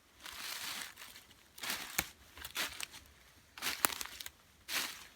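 Dry crinkling rustles in about five short bursts, roughly one a second, with a couple of sharp clicks.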